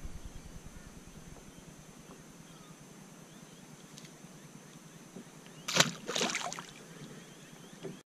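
Quiet hiss beside a kayak on calm water, then a brief cluster of splashes and knocks about six seconds in as a released Australian bass drops back into the water.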